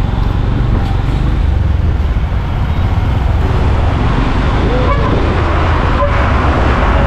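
Steady road and engine noise of a moving vehicle, a continuous low rumble with road hiss that grows a little louder from about four seconds in.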